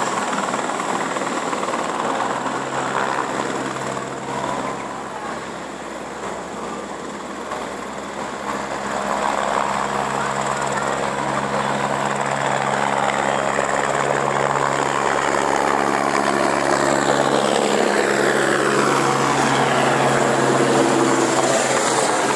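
Helicopter taking off and climbing away, its rotor and engine running steadily. Near the end the pitch falls as it flies past overhead.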